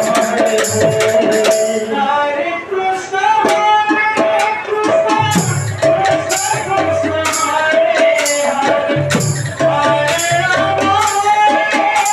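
Devotional kirtan music: a male voice singing a wavering melody over a barrel drum and jingling percussion keeping a fast, steady beat.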